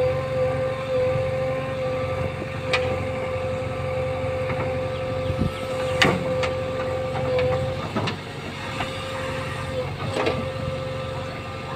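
JCB 3DX backhoe loader running at work, its diesel engine and hydraulics giving a steady drone with a constant high whine. A few sharp knocks sound over it, the loudest about six seconds in.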